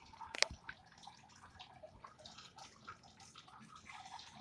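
Faint trickling and dripping of water in a home fish tank, with one sharp click about half a second in.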